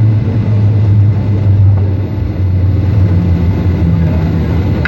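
Steady low rumble of cabin noise inside a Boeing 757-200 taxiing after landing.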